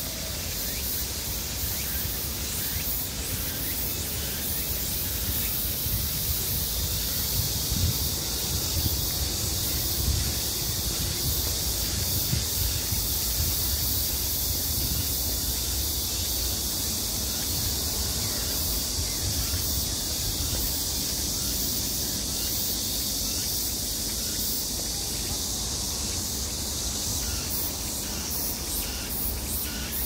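A steady, high-pitched chorus of insects fills the forest without a break. Underneath it runs an uneven low rumble.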